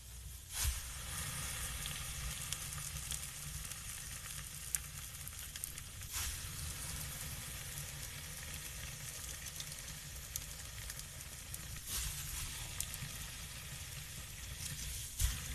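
Steady fine crackling and sizzling, with four louder sharp pops spread about five to six seconds apart.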